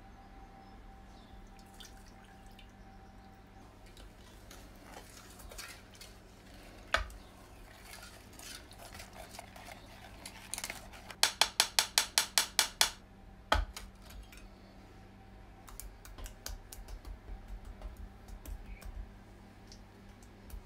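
Egg yolks, sugar and lemon juice being stirred by hand in a stainless steel pot: the utensil scrapes and knocks against the pot, with a fast run of about a dozen strokes near the middle, about seven a second. Scattered light knocks and clicks follow, over a steady low hum.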